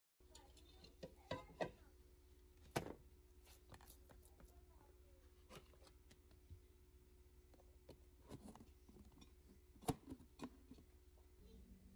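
Faint scattered clicks and knocks of a plastic lid and bowl being handled, the sharpest about ten seconds in as the lid is pressed down onto the bowl, over a low steady hum.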